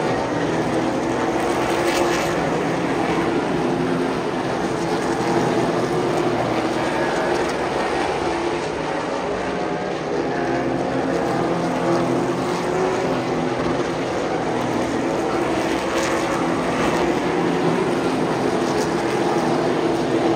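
Super late model race cars' V8 engines running on the track, a steady loud drone of several engines whose pitch drifts up and down a little as they lap.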